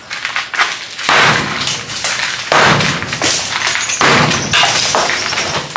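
Hammer blows breaking a cement-rendered masonry wall from the top, with chunks cracking off and rubble clattering down. The crashing starts about a second in and carries on in quick succession.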